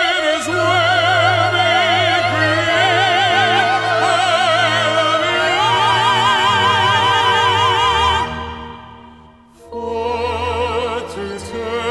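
Recorded operatic singing with wide vibrato over orchestral accompaniment. A long sustained note fades out about eight seconds in, followed by a brief near-pause, and a new sung phrase begins just before the end.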